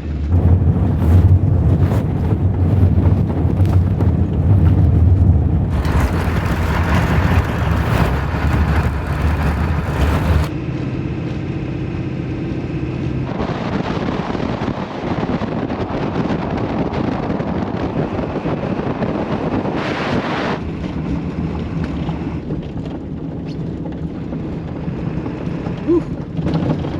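A 1996 Ford F350's 7.3 Powerstroke diesel running at road speed: a steady low engine drone with road and wind noise. The sound changes abruptly about ten seconds in, rises to a louder hiss from about thirteen to twenty seconds, then settles lower.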